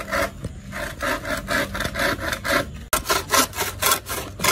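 Bow saw cutting through a bamboo pole in quick back-and-forth rasping strokes, about three to four a second, with a short break about three seconds in.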